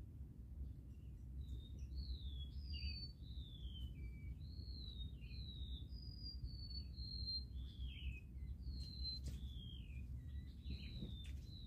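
A songbird singing a long run of clear, slurred whistles, most of them gliding down in pitch, one after another with short gaps, over a steady low rumble of background noise.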